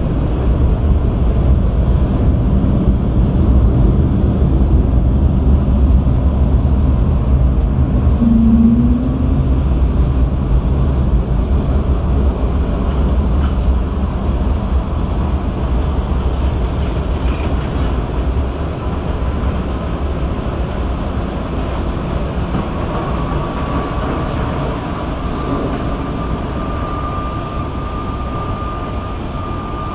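Airbus A220's Pratt & Whitney PW1500G geared turbofans idling as a steady low rumble that eases off slowly, with a faint steady whine coming in about two-thirds of the way through.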